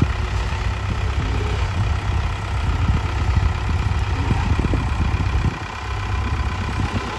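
Case IH tractor's diesel engine running at low speed as the tractor creeps down a trailer's loading ramp, easing off briefly about five and a half seconds in.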